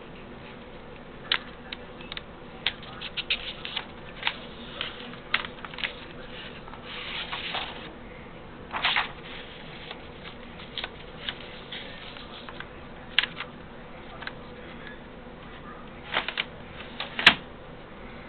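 Irregular, sharp clicks and taps at an uneven pace, with two short scraping sounds about seven and nine seconds in, over a faint steady hum.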